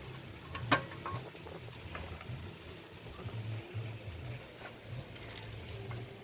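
Gear oil draining from a KisanKraft power weeder's gearbox, trickling and dripping into a pan over a low steady hum. There is one sharp click less than a second in.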